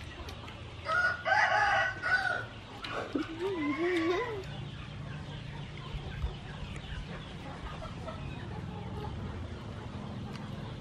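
A rooster crows once, about a second in, a loud call of just over a second. A shorter, wavering call follows.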